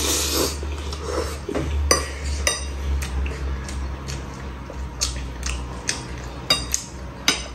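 A slurp of spaghetti to begin, then a metal knife and fork clinking and scraping against a bowl as the noodles are cut and twirled, in scattered sharp clicks with short ringing.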